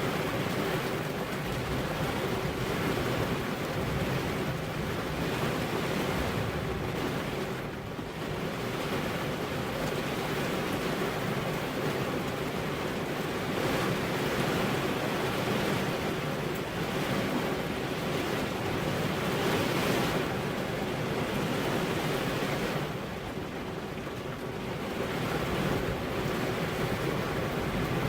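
Heavy rain falling steadily, an even hiss that eases slightly twice, briefly about a third of the way in and for a couple of seconds near the end.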